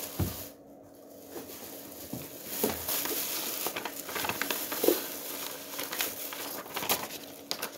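Paper and plastic packaging rustling and crinkling as it is handled, with scattered light clicks and taps.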